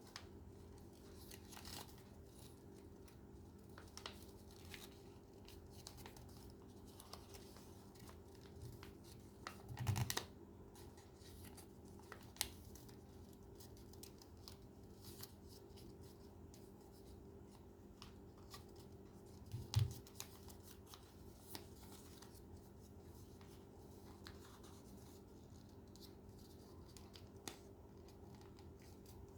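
Paper being handled and folded, with faint crinkles and small clicks and two louder thumps about ten and twenty seconds in, over a faint steady hum.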